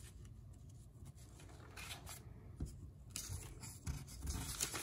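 Large sheets of antique magazine paper rustling and rubbing as they are turned over and smoothed flat by hand, in several short rustles mostly in the second half, with a few soft bumps.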